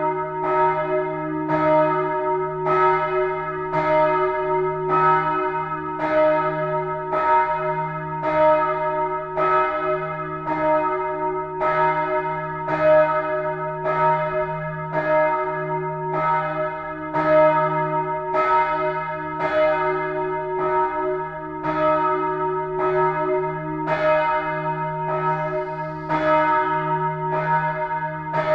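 The bells of Würzburg's Neumünster collegiate church ringing together, swinging. Strokes come in a steady, overlapping stream of more than one a second, each ringing on over a sustained low hum.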